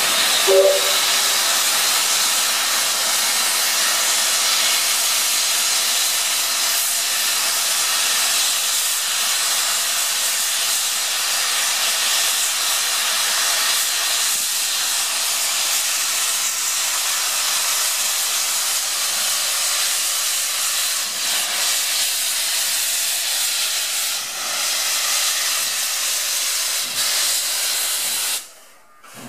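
Steam locomotive 3642, a NSW 36 class 4-6-0, standing and blowing off steam in a loud, steady hiss, heard from right beside it in the steam cloud. The hiss stops abruptly near the end.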